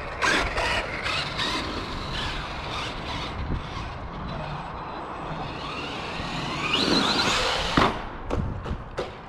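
Arrma Big Rock 3S RC monster truck driving over dirt, its brushless motor whining with tyre noise. The motor revs up with a rising whine about seven seconds in, then a sharp knock as it lands from a jump and a few smaller knocks as it tumbles onto its side.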